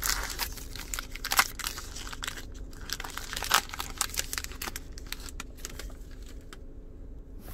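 A foil trading-card pack being torn open and its wrapper crinkled: a run of irregular crackles and crinkles, loudest about a second and a half and three and a half seconds in, thinning out near the end.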